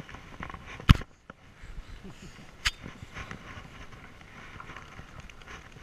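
Handling noise from a handheld camera: rustling and scraping as it is moved against clothing, with two sharp knocks, the louder about a second in and another a little under three seconds in.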